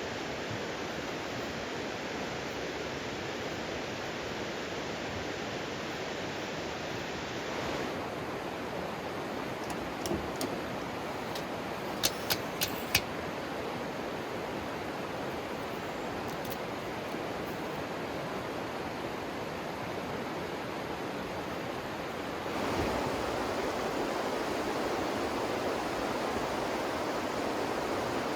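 River water rushing steadily, a constant even noise. A handful of sharp clicks come a little before halfway, and about three-quarters through the rush steps up louder and fuller.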